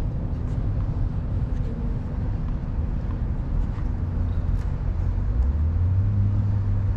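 Steady low background rumble of outdoor ambience with a few faint ticks; a low hum grows stronger near the end.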